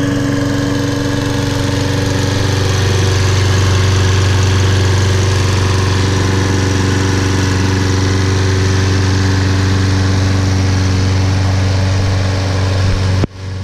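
Briggs & Stratton 7.25 gross-torque engine on a Toro Recycler Personal Pace walk-behind mower running steadily with a deep, even hum. The sound cuts out abruptly for a moment near the end.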